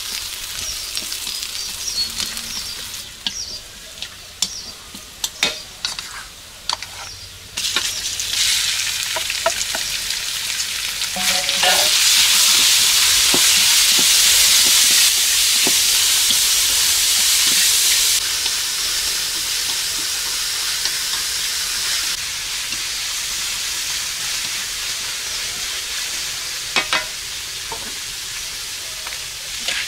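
Food frying in a steel wok: a steady sizzling hiss, with scattered scrapes and taps of a wooden stirrer against the metal. The sizzle gets much louder about twelve seconds in, once minced meat is in the wok, and stays at that level for several seconds.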